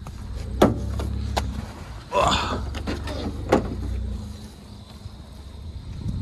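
Pickup truck engine running low and steady as it tows a stripped, muddy pickup chassis on a tow strap through mud, with a few sharp knocks and clanks from the towed frame.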